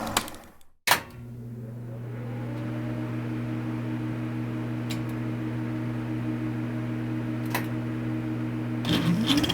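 Film projector switched on with a sharp click about a second in, its motor spinning up over a couple of seconds to a steady hum, with an odd faint click. Near the end a louder projector sound cuts in.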